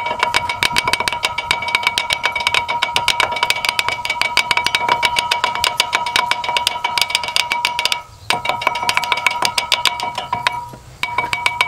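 Ball-peen hammer rapidly tapping the rusty ridge on the edge of a 2011 Chevrolet Suburban's cast iron brake rotor, several taps a second with a steady metallic ring, knocking the loose rusty metal off the rotor's lip. The tapping stops briefly twice, about eight seconds in and near the end.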